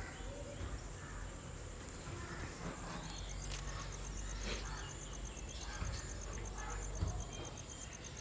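Faint, high, pulsing insect trill, about nine pulses a second, starting about three seconds in, over a low steady rumble.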